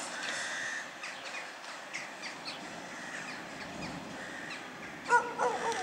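Birds calling with short, high chirps over a faint hiss. About five seconds in, a louder run of harsh cawing calls repeats several times in quick succession.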